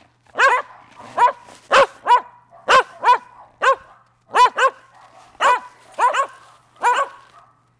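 Shetland sheepdogs barking: about a dozen short barks, one or two a second, with a brief gap about four seconds in.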